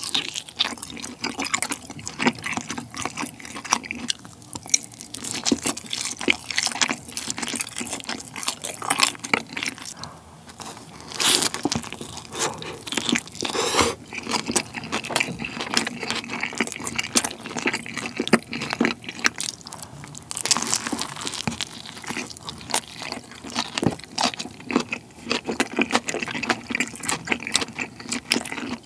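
Close-miked wet chewing and mouth sounds from a person eating, first smoked chicken and then black tiger shrimp pizza, with many small smacks and clicks. A few louder bites come now and then.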